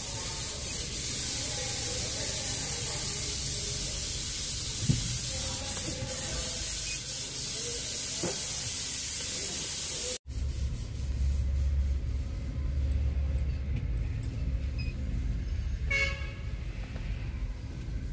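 Inside a Hyundai Grand i10's cabin: a steady hiss for about ten seconds, then the low rumble of the car being driven, with a short toot near the end. There is no knock from the steering column, whose intermediate shaft has just been replaced, and it is now quiet.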